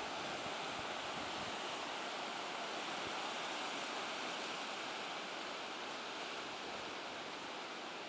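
Ocean surf: waves breaking and washing up the beach, a steady hiss.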